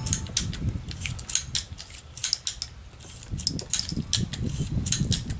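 Quick metallic clicks and small rattles from a .22 revolver being handled, with a low wind rumble on the microphone.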